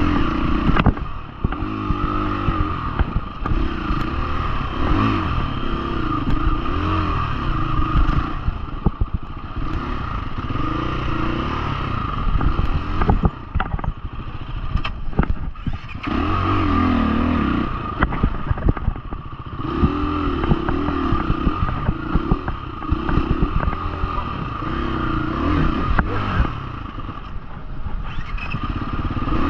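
Husqvarna FE350's single-cylinder four-stroke engine being ridden off-road, its revs rising and falling again and again as the throttle opens and closes, with a few short lulls off the throttle. Frequent sharp knocks and rattles from the bike over rough ground run through it.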